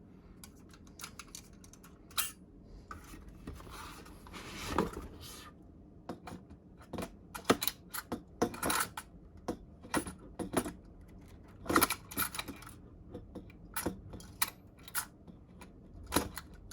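Irregular sharp metallic clicks and clatter of the stock AMD Wraith Prism CPU cooler's metal retention clip being lined up and hooked onto the motherboard's mounting bracket.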